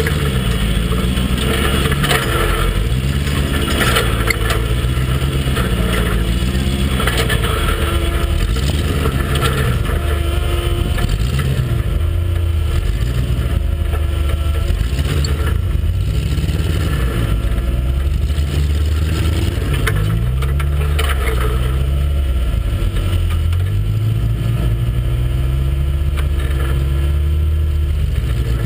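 Off-road rock buggy's engine running at low speed, its pitch rising and falling as the throttle is worked while crawling over rocks.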